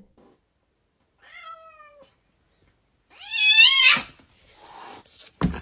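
Cat meowing: a faint drawn-out meow falling in pitch, then a louder wavering meow about three seconds in. A sudden loud noise breaks in right at the end.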